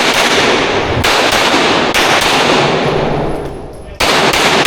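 Rapid pistol fire in a USPSA stage run: a quick string of shots, a short pause near the end, then shooting resumes about four seconds in, each shot ringing out loud.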